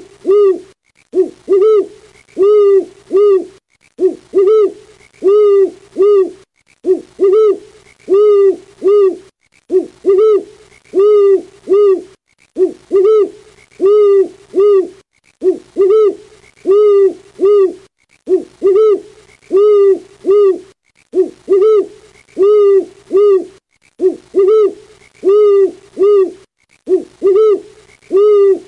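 Owl hooting: short hoots in groups of about three, a group every second and a half or so, repeating in an even, unchanging rhythm.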